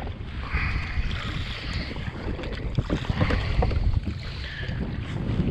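Wind buffeting the microphone over the wash of choppy sea water around a jet ski, with a few light knocks.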